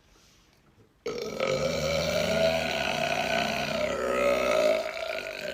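A man's long, drawn-out burp, starting about a second in and lasting about four and a half seconds before it tails off.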